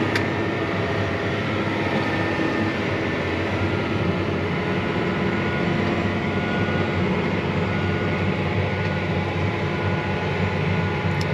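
John Deere 9560R articulated tractor's diesel engine running steadily under load while pulling a tillage disc, heard from inside the cab as an even drone with a low hum.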